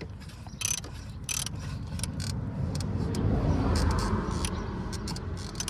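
A ratchet wrench clicking in short strokes as a part is tightened back down. A low rumble swells and fades around the middle.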